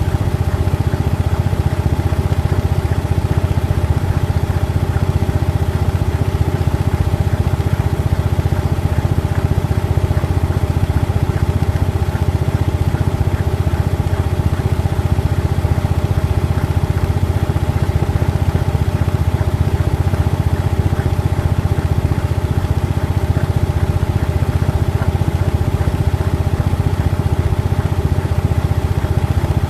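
Washing machine drum spinning on a 900 rpm spin cycle, recorded from inside the drum: a loud, steady, low hum with no change in speed.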